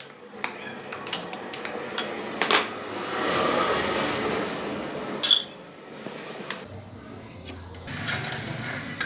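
Metal clinks and taps of hand tools against engine parts as the balancer gear is worked off a motorcycle engine. A louder clink comes about two and a half seconds in and another just after five seconds, with a few seconds of scraping noise between them.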